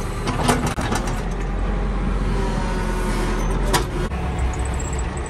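Backhoe loader's diesel engine running with a steady low rumble, now brought to life to power the digging arm's hydraulics. There are a couple of sharp metallic clanks about half a second in and again near the four-second mark, and the engine note shifts a little at that second clank.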